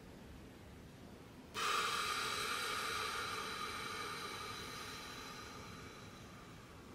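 A person's long, slow breath for paced deep breathing, starting suddenly about a second and a half in and slowly fading away.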